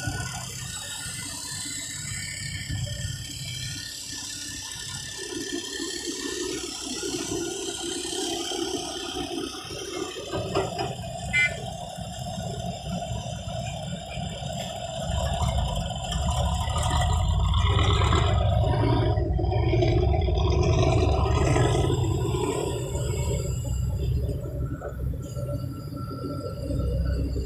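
Sumitomo SH350 hydraulic excavator working: its diesel engine and hydraulics running under load as the bucket digs and swings, with a steady low rumble that grows louder for several seconds past the middle.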